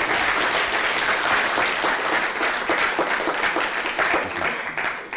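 Audience applauding: many hands clapping together at once, dying away near the end.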